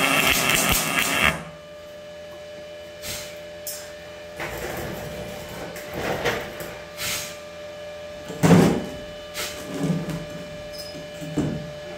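MIG welding arc crackling steadily, cutting off about a second in. After it a steady machine hum remains, broken by a few short knocks and scrapes of metal being handled.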